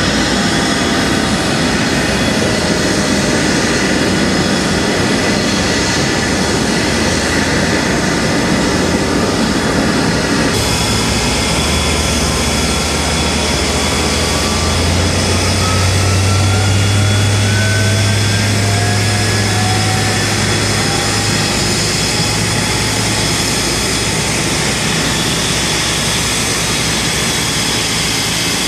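McDonnell Douglas MD-10 freighter's turbofan engines running, a loud, steady jet roar with a low hum. Through the middle, faint whining tones slowly rise in pitch.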